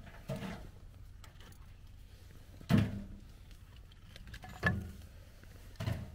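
Split firewood being loaded into a small metal wood stove, the pieces knocking against each other and the stove: four short knocks a second or two apart, the loudest a little before the middle, some with a brief metallic ring.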